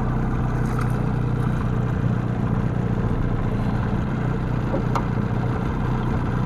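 Boat motor running steadily at low trolling speed, a constant low hum, with a couple of faint clicks about a second in and again near five seconds.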